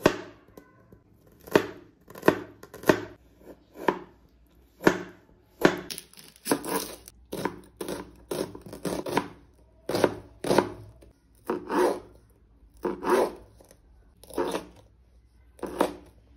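Kitchen knife chopping vegetables (garlic, red onion, green chilli) on a plastic cutting board: sharp knife taps at an uneven pace, about two a second.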